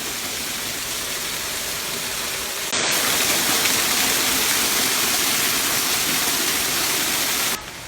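Water pouring over a spillway dam as a steady rush. It gets sharply louder about three seconds in and drops back just before the end.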